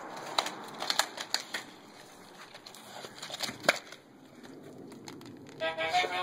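Scattered light clicks and taps of a dog's claws on concrete and a plush toy being handled, then about five and a half seconds in a plush chicken toy starts playing a loud electronic tune.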